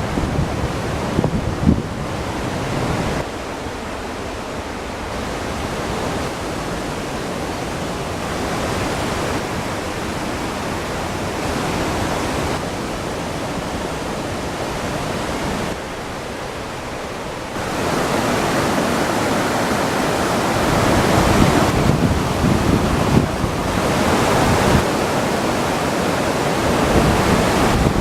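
Naena Falls waterfall pouring with a steady rush of falling water. The level shifts abruptly a few times and is louder over the last ten seconds or so.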